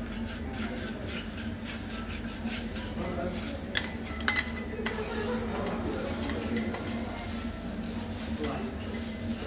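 Metal teppanyaki spatulas clicking and scraping on a steel griddle, with two sharper clinks a few seconds in, over a low steady hum.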